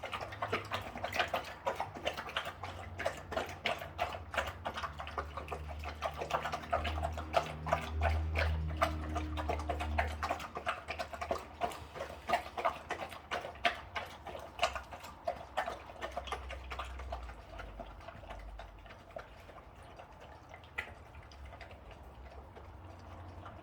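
Golden retrievers eating their dinner: a rapid, dense run of crisp clicks and crunches that thins out and grows sparser in the second half.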